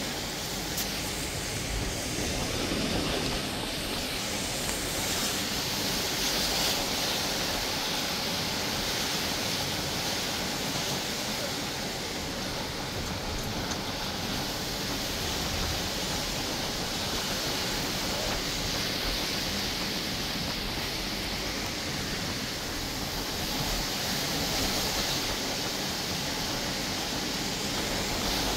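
Heavy rain falling in a steady, dense hiss that swells and eases a little now and then.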